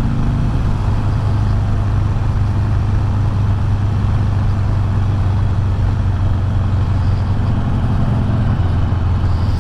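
Harley-Davidson Iron 883's air-cooled 883 cc V-twin running steadily as the motorcycle rides at an even speed, with wind noise over the microphone.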